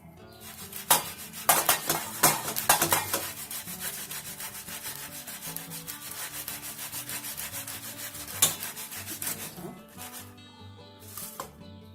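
Lightly boiled potato being grated on a metal hand grater: fast, continuous rasping strokes, loudest in the first few seconds with another sharp scrape later on, easing off near the end.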